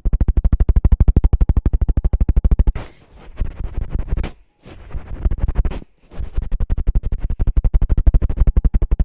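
Close-miked ASMR trigger sounds: fast rhythmic strokes, about nine a second and heavy in the bass. About three seconds in they break off into softer, irregular scratching with two brief drop-outs, then start again about six seconds in.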